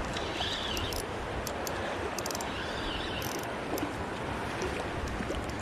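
Steady rush of fast, high water in a creek at flood stage, with scattered light clicks over it.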